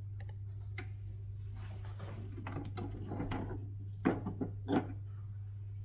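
Portafilter being twisted out of the Karaca Coffee Art 1101 espresso machine's group head and handled: light clicks and scraping, then two knocks a little over four seconds in, over a steady low hum.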